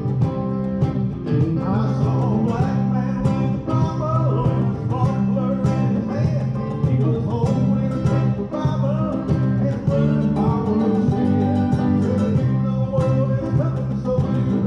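Bluegrass gospel band playing an instrumental passage on plucked strings, with mandolin and guitar.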